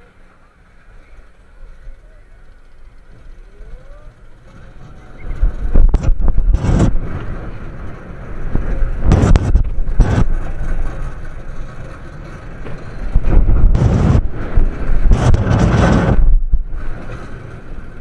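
SDC Windstorm steel roller coaster in motion: wind rushing over the microphone and the car's wheels rumbling on the track. Fairly quiet for the first few seconds, then loud surges of wind and rumble come in waves about five, nine and thirteen seconds in as the car speeds through the turns.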